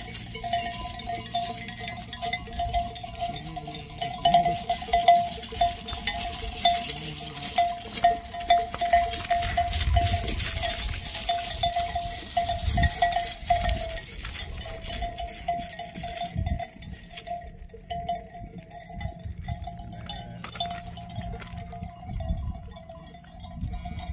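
A sheep's neck bell clanking irregularly as the sheep grazes and walks, ringing on one steady note, with scattered clicks.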